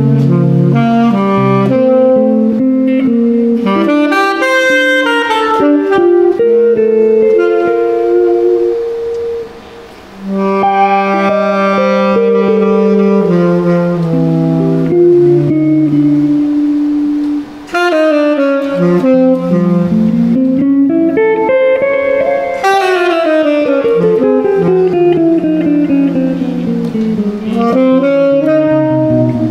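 Tenor saxophone playing a melody in long held notes over electric archtop guitar accompaniment, a jazz duo; the saxophone drops out briefly about ten seconds in.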